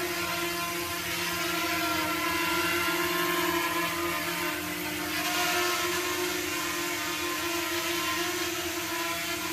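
Small FPV quadcopter's brushless motors and propellers whining steadily in a hover, the pitch wavering slightly as the throttle holds it in the air.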